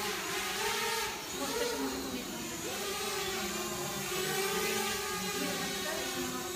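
Small 3D-printed multi-rotor copter's motors and 5-inch propellers whining in flight, several tones wavering up and down together as the throttle shifts.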